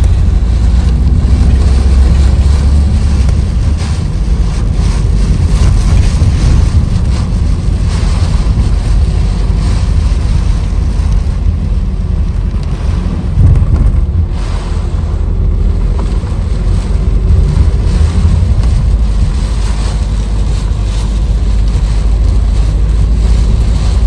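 Strong typhoon wind and rain, the gusts buffeting the microphone into a loud, uneven rumble, heard from a moving car.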